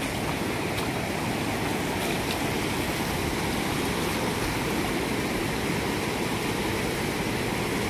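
Fast-flowing river rushing steadily, a constant hiss of moving water.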